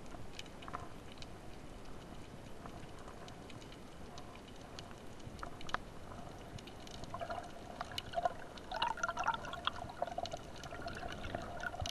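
Water bubbling and gurgling around the microphone, with scattered faint clicks; the bubbling grows busier from about seven seconds in.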